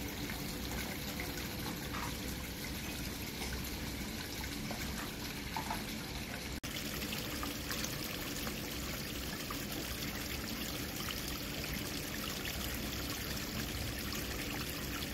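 Small garden stream trickling over rocks, a steady running-water sound that breaks off for an instant about six and a half seconds in.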